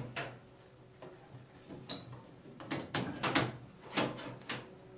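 A series of sharp clicks and knocks as an LED tube is worked into the plastic tube holders of a 4-foot fluorescent fixture, knocking against the fixture's sheet-metal housing. The loudest knock comes a little over three seconds in.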